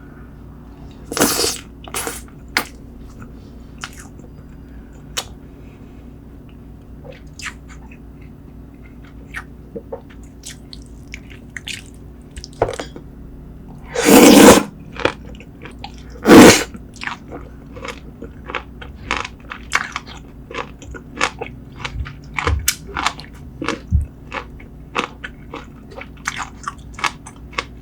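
Close-up eating sounds of spicy braised seafood: wet chewing, crunching and biting in quick irregular clicks, with two louder crunching or slurping bursts about halfway through.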